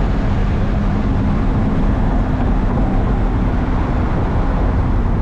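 C8 Corvette V8 running steadily through a newly installed Tap Speed exhaust, a low rumble holding a constant pitch.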